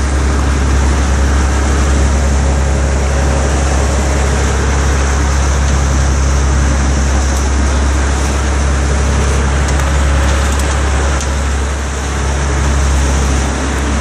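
A fishing boat's engine running steadily underway, a constant low drone, with the rush of water churning in the wake.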